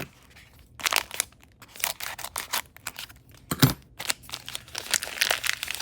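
A small plastic packaging bag crinkling and tearing as it is opened, in irregular bursts of crackle, with a single louder knock about three and a half seconds in.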